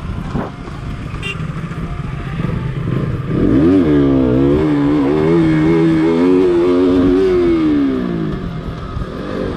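KTM RC 200's single-cylinder engine heard from the bike itself with wind noise, running lightly at first, then about three seconds in revving sharply up, holding high revs under hard acceleration for about four seconds, and dropping away near the end as the throttle closes.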